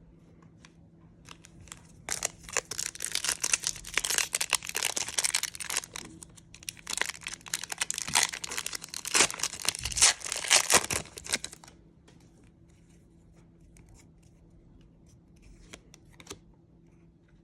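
A trading card pack wrapper being torn open and crinkled, a dense crackling rustle from about two seconds in that stops well past the middle. Quieter handling with a few faint ticks follows.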